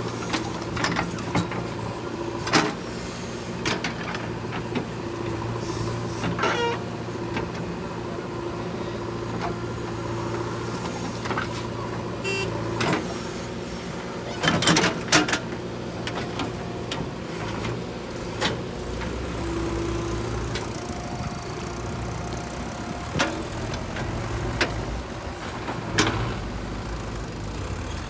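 JCB 3DX backhoe loader's diesel engine running steadily under load as the backhoe digs and dumps soil, with scattered clanks from the bucket and arm. A deeper engine note joins about two-thirds of the way through.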